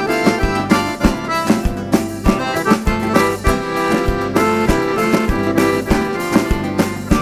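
Instrumental passage of a live band: accordion over acoustic guitars, bass guitar and a steady drum beat of about two hits a second.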